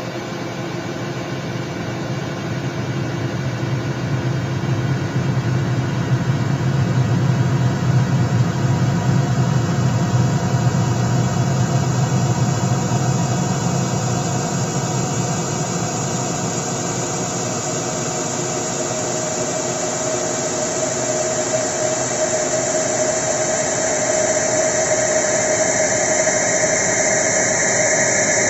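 A loud, steady engine-like mechanical drone. A low hum dominates the first half, then a higher tone and hiss grow louder toward the end.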